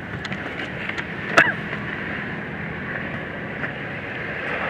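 Steady rushing noise with no words, broken by a short click and a brief chirp about a second and a half in.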